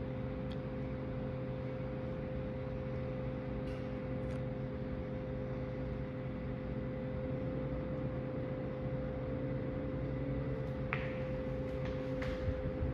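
Hampton Bay Landmark 52-inch ceiling fan running, a steady electrical hum, with a few faint ticks near the end.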